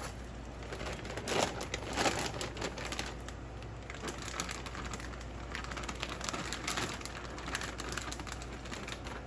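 Plastic packaging crinkling, with irregular clicks and taps from the raw meat being handled and unwrapped.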